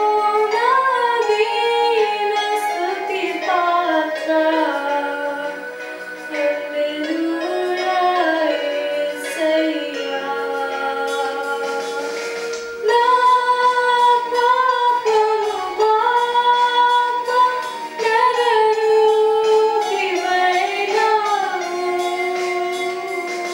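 Music with a female voice singing a slow melody of long held and sliding notes. It gets louder about halfway through.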